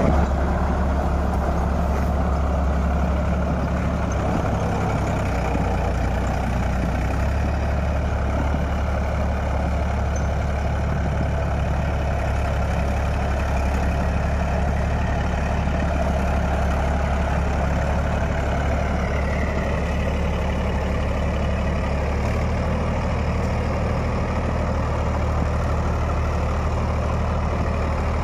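Mahindra 275 DI tractor's three-cylinder diesel engine running steadily under load while driving a rotavator through the soil.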